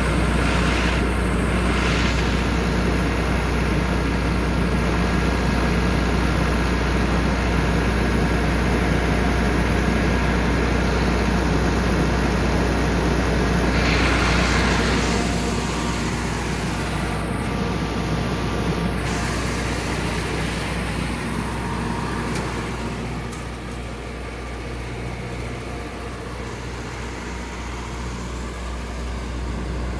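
Generator-set engine of an FMC M10000 30-ton ground air conditioning unit running steadily with a low, even drone. It grows quieter about halfway through and louder again near the end.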